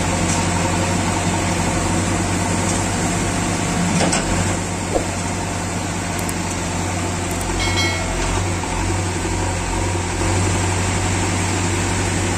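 JCB 3DX backhoe loader's diesel engine running steadily while the backhoe arm digs into a sand heap. There is a single knock about four seconds in and a short high tone near the eight-second mark.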